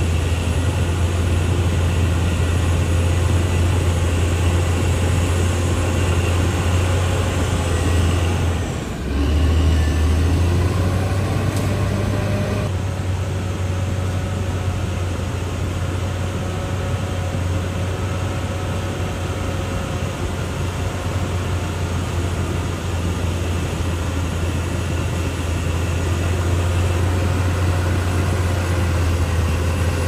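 Caterpillar D6R XL bulldozer's diesel engine running steadily under work, a heavy low drone with a brief dip about nine seconds in.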